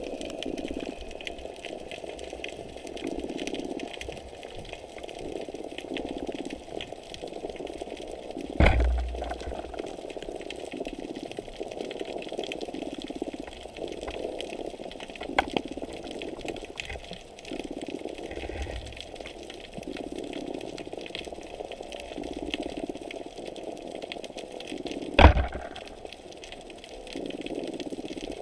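Muffled underwater sound of moving water heard through a GoPro's waterproof housing, rising and falling slowly. Two sharp knocks stand out, one about nine seconds in and a louder one near the end.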